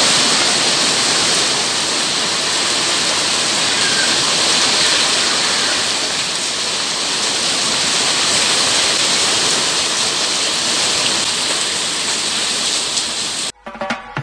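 Heavy rain pouring onto wet paving, a steady even hiss. It cuts off suddenly near the end.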